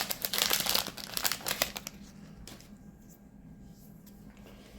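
Crinkling and tearing of a Magic: The Gathering booster pack's foil wrapper being torn open, dense for about two seconds, then dying down to faint handling.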